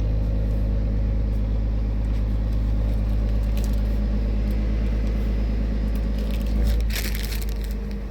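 Steady low drone of an idling engine, with a few rustling handling sounds near the end.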